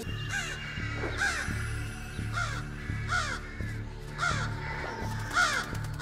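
Crows cawing repeatedly in short, harsh calls, one every half second to a second, scolding a person wearing a mask. Background music with a low pulsing beat runs underneath.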